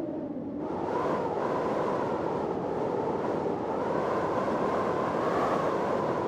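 Storm wind blowing hard with a whistling note. About half a second in, a gust swells and the note rises in pitch, then the wind holds steady.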